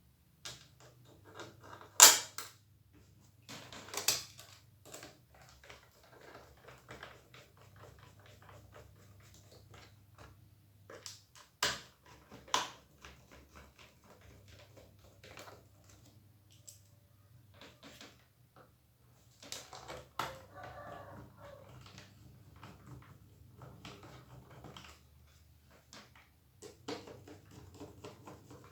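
Plastic laptop parts clicking and tapping as they are handled and fitted together during reassembly. There are scattered small clicks, with sharp loud clicks about two seconds in, near four seconds and twice around twelve seconds, over a faint steady low hum.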